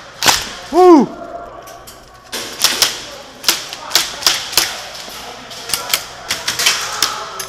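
A sharp crack, then a short shout about a second in, the loudest moment. From about two seconds on comes an irregular run of sharp clicks and cracks of airsoft gunfire.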